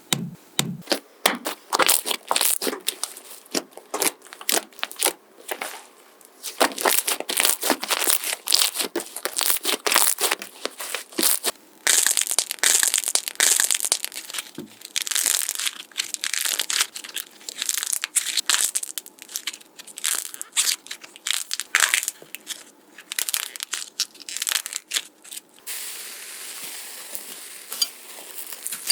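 Slime being squeezed and pressed by hand, giving dense, irregular crackling and popping. Near the end it turns to a softer, steadier crackle.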